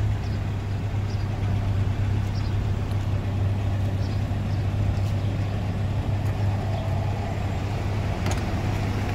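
Motor vehicle running: a steady low engine drone with road noise that holds unchanged.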